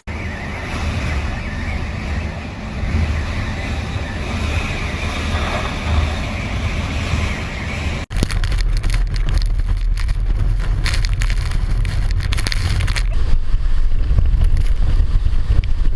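Hurricane wind blowing hard across the microphone, a steady noisy rush. About eight seconds in it cuts to a second recording where the wind rumble on the microphone is heavier and crackles with gusts.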